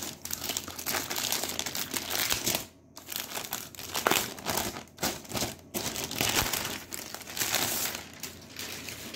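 Thin plastic laptop sleeve crinkling and rustling as it is handled and the laptop is pulled out of it, with a brief lull about three seconds in and a few sharper crackles after it.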